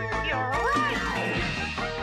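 Instrumental music with quick plucked notes and a few sliding notes about half a second in.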